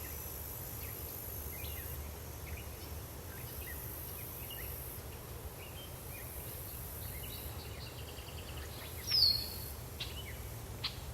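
Forest ambience: a steady high insect drone and scattered short bird chirps over a low, even rumble. About nine seconds in, one louder bird call glides downward, and a short sharp note follows near the end.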